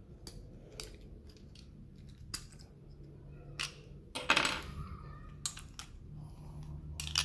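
Hard plastic toy parts of a Transformers Astrotrain figure's weapon accessories being handled and snapped together: a series of separate sharp clicks and clacks, with a longer rattling clatter about four seconds in.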